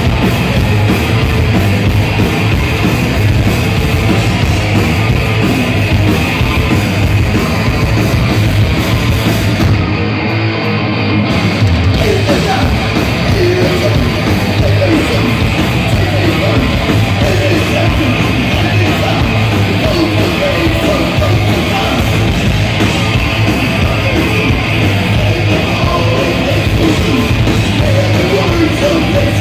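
Thrash metal band playing live through a PA: distorted electric guitars, bass guitar and drums, with shouted vocals over them.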